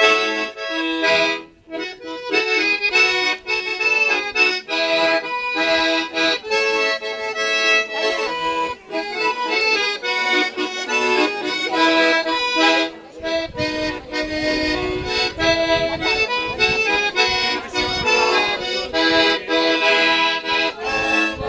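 Russian garmon (button accordion) playing a folk tune, melody over chords, with a brief break about a second and a half in.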